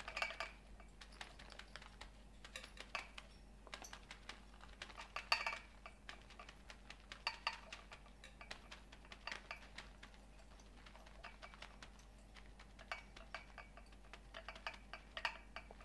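Faint, irregular light ticks and rustles as coconut shavings are shaken from a plastic bag and drop into a metal muffin tin.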